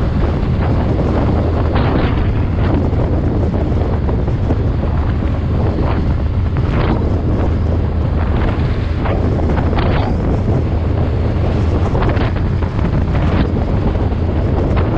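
Heavy wind buffeting on the microphone of a moving vehicle, surging in gusts over a steady low drone.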